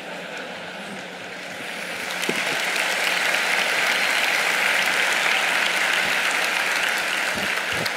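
Large audience applauding, the clapping swelling about two seconds in, holding, and thinning out near the end.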